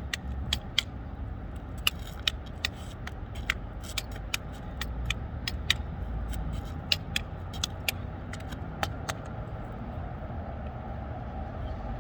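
Devil sticks being juggled: the handsticks striking the centre stick in quick, irregular clicks, roughly two or three a second, which stop about nine seconds in. A steady low rumble runs underneath.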